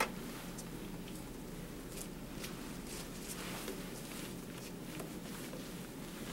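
Quiet room with a steady low hum, and a few faint clicks and rustles of gloved hands handling small supplies.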